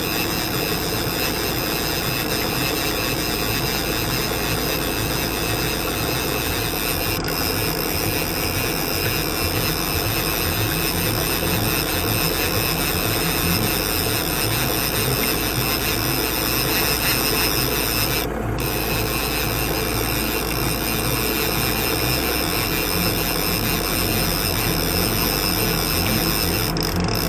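Mercury outboard motor running steadily at trolling speed.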